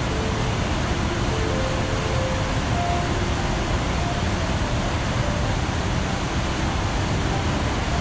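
A waterfall where a wide river cascades over rock ledges, giving a steady, unbroken rush of falling water.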